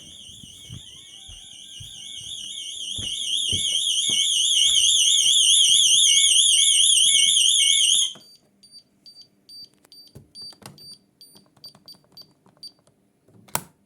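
Security alarm siren warbling fast at a high pitch. It grows louder over a couple of seconds, holds, then cuts off abruptly about eight seconds in. A quick run of short high beeps follows, and a single sharp click comes near the end.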